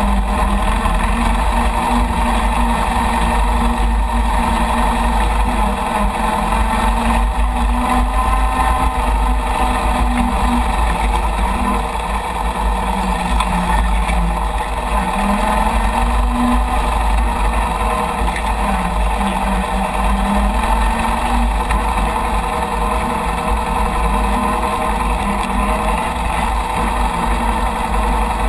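Chang Jiang 750 motorcycle's side-valve flat-twin engine running under way as it is ridden, its note rising and falling a little with the throttle. There is steady wind rumble on the microphone.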